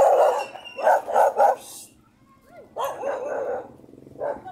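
Dogs barking in short loud barks: three quick barks about a second in, a brief lull, then another run of barks near three seconds.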